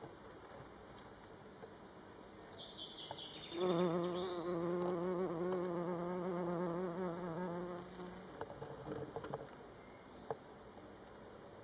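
A bumblebee buzzing in flight close by: a low hum with a slightly wavering pitch that starts about a third of the way in and stops about two-thirds through, followed by a few faint ticks.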